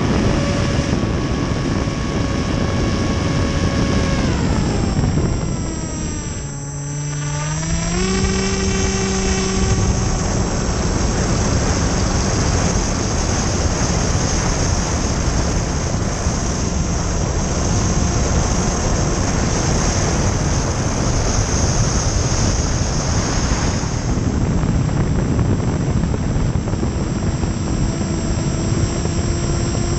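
Electric motor and propeller of a Hobbyzone Aeroscout S RC plane, heard from a camera mounted on the plane over steady wind rush. About four seconds in, the motor's whine falls in pitch and gets quieter, as when the throttle is eased off. A couple of seconds later it climbs back up and then holds steady.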